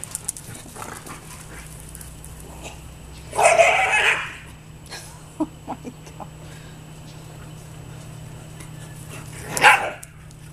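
Dogs at play: one dog gives a drawn-out bark lasting just under a second about three and a half seconds in, and a single short bark comes near the end.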